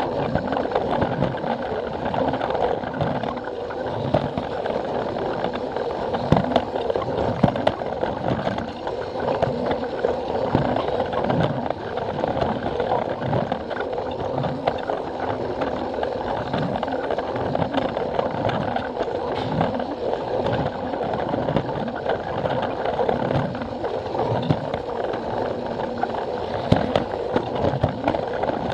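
Battery-powered Plarail toy train running on plastic track, heard from on board: a steady gear and motor whine, with the wheels knocking over the track joints about once a second.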